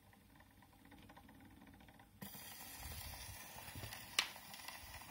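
Surface hiss and crackle of a 78 rpm record heard through an HMV 101 gramophone's 3D-printed PLA soundbox and horn. It starts suddenly about two seconds in as the needle meets the lead-in groove, and a single sharp click comes near the end.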